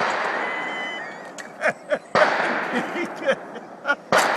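The fading echo of a .410 shotgun shot, followed by several sharp knocks and clicks and a loud sharp bang near the end.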